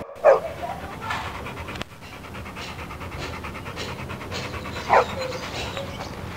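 A pit bull-type dog panting fast and rhythmically, open-mouthed, with two short, sharp, high-pitched sounds standing out: one just after the start and one about five seconds in.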